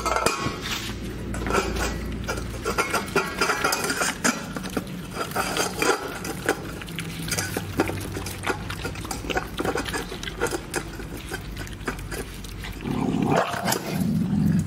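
Several dogs eating together from a stainless-steel bowl: rapid lapping and chewing, with teeth and tongues clicking and the bowl scraping against the metal. Near the end a short, louder animal vocal sound rises over the eating.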